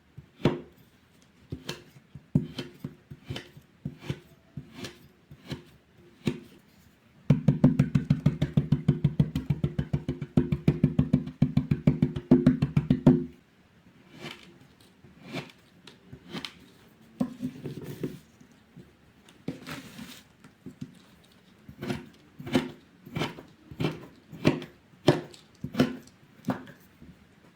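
A blade cutting through crunchy kinetic sand: single crisp crunching cuts about once a second, then a fast run of many quick chopping cuts for about six seconds in the middle, then single cuts again.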